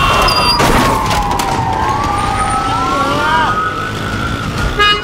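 Police car siren wailing in slow sweeps, its pitch falling and then rising again, over a bed of engine noise. A brief loud sound comes near the end.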